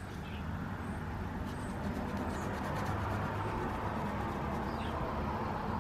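A low engine hum, like a passing vehicle, swells through the middle and eases off again. Under it is the faint scrub of a cotton pad soaked in nail polish remover wiping wet nail polish off a thermos, with a few faint bird chirps.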